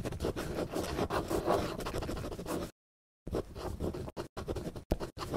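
Pen scratching across paper in handwriting strokes: a long stretch of continuous scratching, a short pause a little under three seconds in, then several shorter separate strokes with gaps between them.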